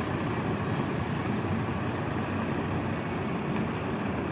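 A vehicle engine running steadily, the sound mostly low-pitched with no sudden events.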